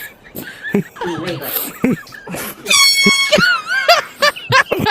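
An air horn blasts once for about half a second, about three seconds in, right after some talking, and is followed by high-pitched cries.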